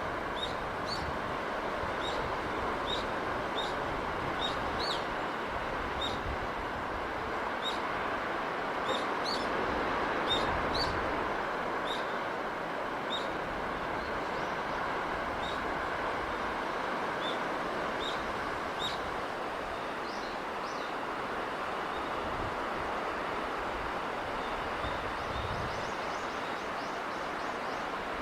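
Steady rushing noise of sea breeze, with small birds chirping over it in short, high, repeated calls, more often in the first half.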